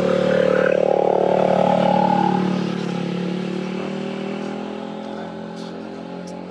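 A motorbike engine running steadily as it passes close by and moves off, the sound loudest over the first couple of seconds and then fading away.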